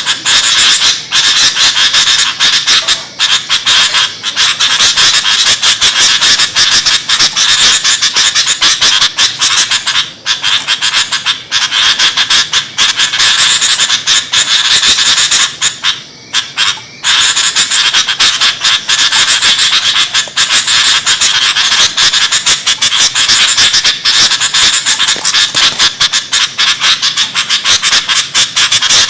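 Sooty-headed bulbuls (kutilang) chattering noisily and almost without pause, a dense run of rapid calls broken only by brief gaps, with a slightly longer gap about sixteen seconds in.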